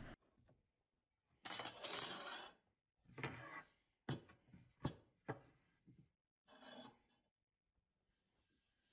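Wooden cutting board being slid and handled on a router table: a brief scraping slide, then a few light knocks and clinks as it is lifted and turned.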